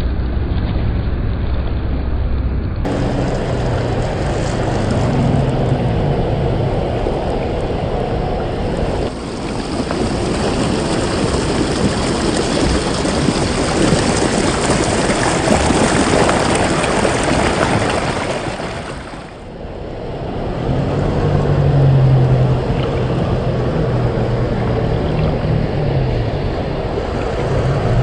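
1/10-scale RC crawler with a 540 brushed motor driving through mud and water, tyres churning and splashing steadily with the motor and gears running under it. The sound dips briefly about two-thirds of the way in.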